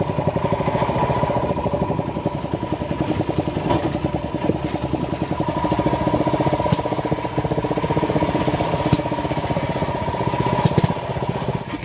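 Small petrol engine running steadily at an even speed, with a fast, even firing pulse.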